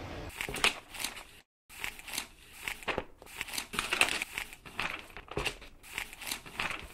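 Sound effects of an animated logo sting: a rapid run of short noisy hits and swishes with no music. A brief dead gap comes about one and a half seconds in, and the effects stop abruptly at the end.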